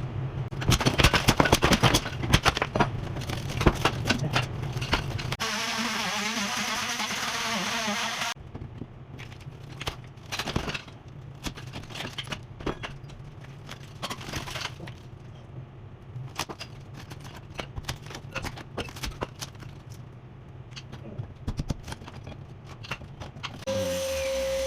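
Plaster being broken and pried off a wall reinforced with metal mesh: many knocks, cracks and crumbling, over a steady low buzzing hum for the first few seconds. A hissing stretch follows, then quieter scattered knocks, and a steady tone starts near the end.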